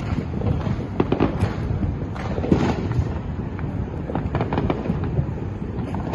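Fireworks going off in a rapid, irregular series of sharp bangs and pops, many overlapping, over a steady low rumble.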